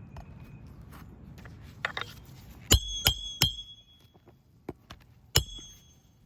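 Hammer striking roofing nails to fasten a replacement asphalt shingle: three sharp ringing metal strikes in quick succession near the middle, then one more near the end, with lighter clicks just before.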